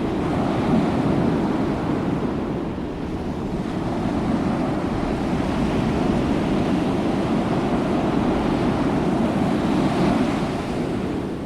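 Steady wind and surf noise, with wind buffeting the microphone.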